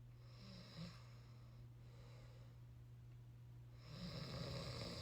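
Tiny, soft snores from a small sleeper: a short snoring breath within the first second, then a longer one from about four seconds in.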